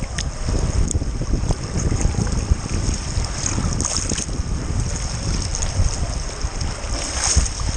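Fast river current rushing and splashing right at the microphone, with a heavy low rumble of wind and water buffeting the microphone.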